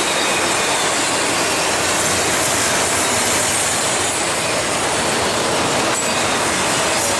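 Intermodal freight train's cars rolling past close by: a loud, steady rush of steel wheels on rail, with faint thin wheel squeal tones.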